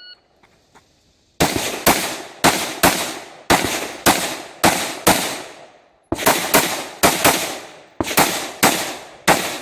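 A shot timer beeps once, then a rifle fires a fast string of about sixteen shots, roughly two a second, with a short break about halfway through. Each shot rings out with a short echo.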